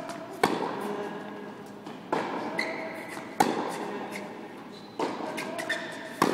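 Tennis balls struck back and forth by rackets in a rally, five sharp pops about one and a half seconds apart, each echoing through a large indoor court hall.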